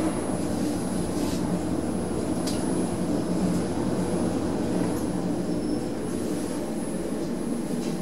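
Ride noise inside a high-speed Kone lift car travelling up at about 3 metres a second: a steady rumble and rush of air, with a few faint clicks. It grows a little quieter near the end as the car slows.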